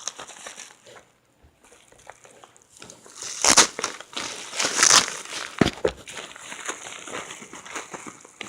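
Plastic packaging crinkling and crackling as it is pulled and torn open by hand, with the loudest bursts about three and a half and five seconds in, after a short lull.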